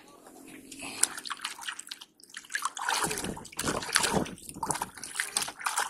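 Water splashing and dripping in irregular bursts, busiest about halfway through.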